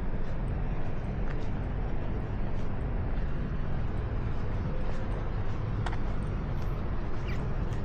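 Honda CBR650R's stock inline-four engine running steadily while riding, under a haze of wind and road noise.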